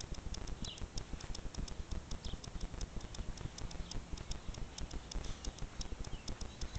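A Pomeranian rubbing and rolling in grass: a quick, uneven run of rustling ticks, several a second, over low thumps as its body pushes along the ground.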